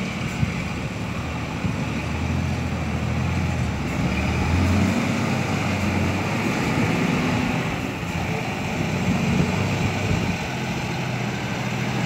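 Diesel engine of a heavy Isuzu dump truck running and revving, its pitch rising and falling a few times, as a truck mired in mud is worked.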